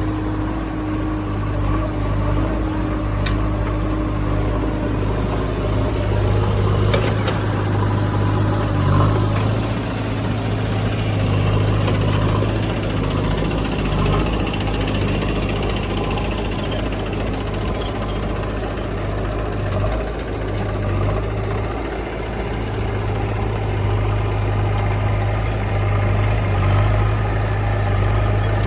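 Heavy diesel engine running steadily, with a couple of faint sharp clicks.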